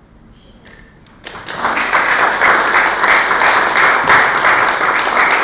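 Audience applauding. The clapping starts suddenly about a second in after a short quiet and then stays loud and dense.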